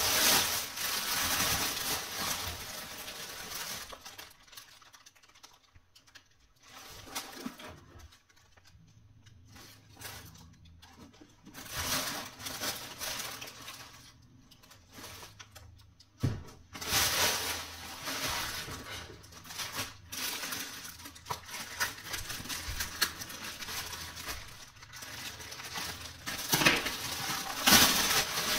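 Thin plastic poly bags crinkling and rustling in irregular bursts as sneakers are pulled out and handled, going much quieter for several seconds a few seconds in, then busy again.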